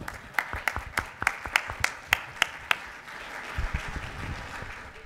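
Audience applauding, with one nearby person's claps standing out sharply at about three a second for the first three seconds, then only the general applause carrying on. A few low bumps come near the end.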